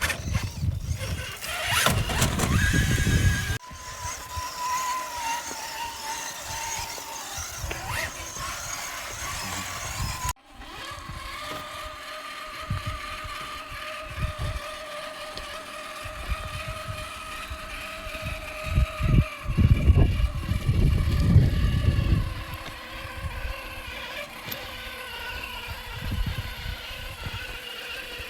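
Electric motor and gear drive of a 1/7-scale RC trail truck whining steadily as it crawls, the pitch drifting slightly with throttle, with low gusts of wind on the microphone. The sound breaks off abruptly twice, about three and a half and ten seconds in.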